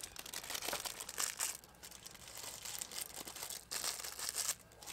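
Irregular rustling and crinkling, in uneven clusters of crackle with short quieter gaps.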